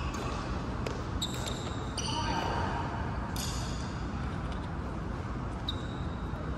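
Badminton play in a sports hall: a few sharp racket-on-shuttlecock hits and short high squeaks of court shoes on the floor mat, scattered through the first half and once near the end, over a steady hall hum.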